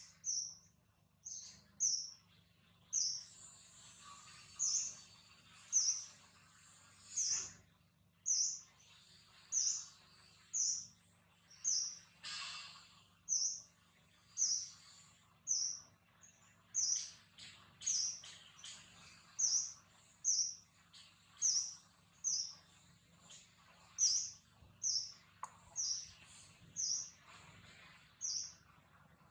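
A bird repeating a short, high chirp about once a second, steadily.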